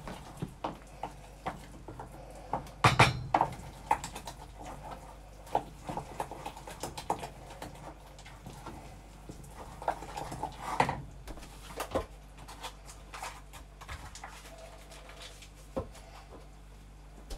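Boiled potato and celeriac being mashed and stirred in a stainless steel saucepan: irregular knocks and scrapes of a wooden spoon against the pan, loudest about three seconds in and again around ten to eleven seconds in.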